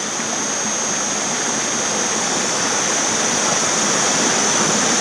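Rain-swollen creek rushing steadily, a loud, even wash of moving water.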